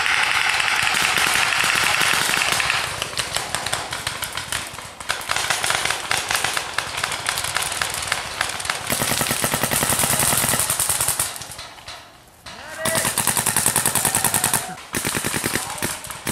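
Paintball markers firing in long, rapid volleys of shots. The fire breaks off briefly about twelve seconds in, then resumes.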